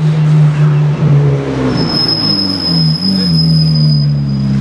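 Ferrari 430 GT3's V8 race engine running at low revs as the car moves slowly, with a couple of small throttle blips. A thin high steady whine sits over it for a couple of seconds in the middle.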